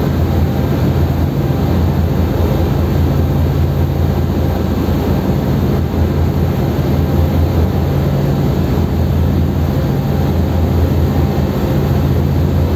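Car ferry's engines droning steadily, a low hum with a constant rushing noise of wind and water over it, heard from the open deck while the ship is under way.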